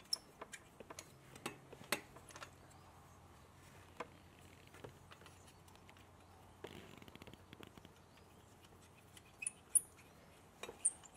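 Small metal clicks and taps as exhaust header flange nuts are threaded hand-tight onto the studs and the header pipes knock lightly against the flange, with a brief run of quick ticks about seven seconds in.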